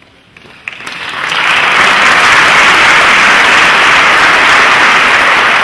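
Audience applause: a few scattered claps, then within about a second it swells into loud, steady clapping.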